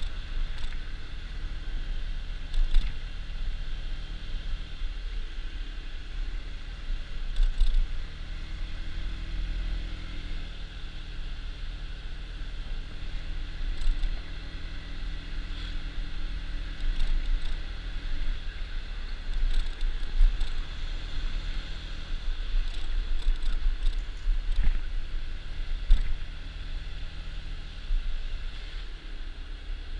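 Honda Dio scooter under way at low speed: wind rumbling on the microphone over the steady note of the scooter's small engine, with a few short knocks.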